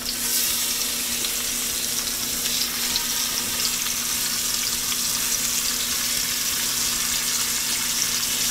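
Squirrel pieces frying in hot oil in a cast-iron skillet: a steady sizzling hiss with small crackles, starting abruptly. A faint steady hum runs underneath.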